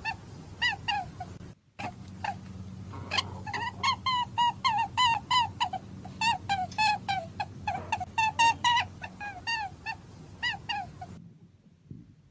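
Rabbit squeaking: a rapid series of short, high, arching squeaks, several a second, with a brief break early on. The squeaks stop abruptly about a second before the end.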